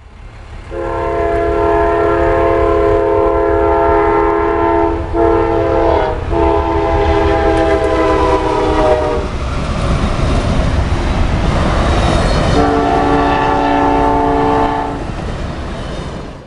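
A train's air horn sounds a chord of several notes in a long blast, breaking off briefly twice about five and six seconds in. The loud rushing rumble of the passing train follows, then a second horn blast comes near the end.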